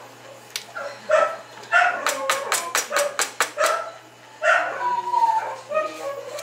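A dog barking and yipping repeatedly, with a quick run of about eight sharp barks some two seconds in.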